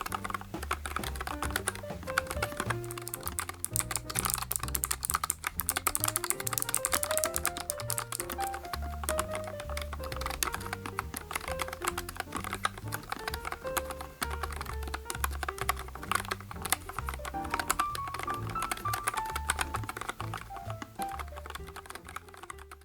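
Continuous fast typing on a NuPhy Air75 low-profile mechanical keyboard, a dense run of key clacks, over background music with a bass line.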